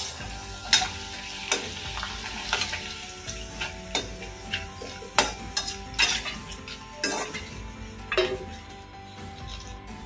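A papad sizzling as it fries in hot oil in a kadhai. A steel slotted spoon clicks and scrapes against the pan again and again as the papad is turned and lifted out.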